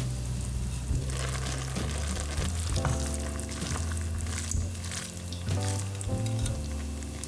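Broccoli pasta sizzling and bubbling in a stainless-steel pot as a wooden spoon stirs through it, with background music underneath.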